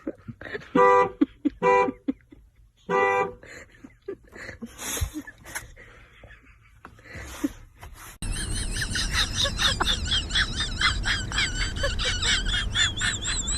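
Three short, even-pitched horn-like toots in the first few seconds, followed by scattered light knocks and rustling. About eight seconds in, a louder passage begins with a steady low rumble and rapid, warbling high chirps.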